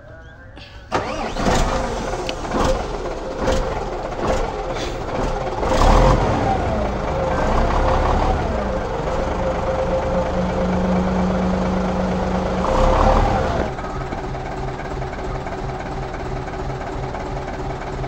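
Diesel truck engine starting about a second in and running, revved up and down a few times. It then settles to a steady, evenly pulsing idle for the last few seconds.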